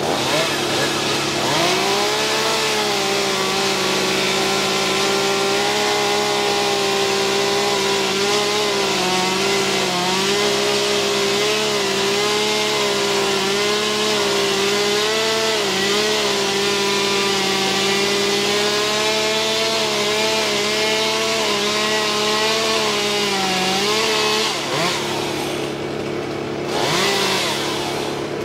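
A chainsaw runs at high revs as it cuts into a maple, its pitch dipping and recovering as the chain bites. It drops off near the end, then gives one short burst. A steady lower engine hum runs underneath.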